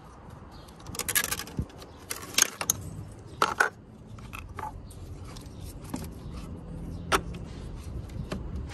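Metal wrench and cable lug clinking and scraping on a car battery's positive terminal as a power cable is fastened on: a few sharp metallic clatters about 1, 2.5 and 3.5 seconds in, and one more near the end.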